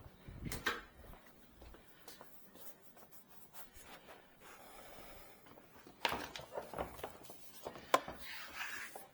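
Tesla Gen 3 Wall Connector cover being handled and fitted against the unit: soft rubbing and scraping with scattered clicks and knocks, a cluster of them about six seconds in and a sharp click about eight seconds in.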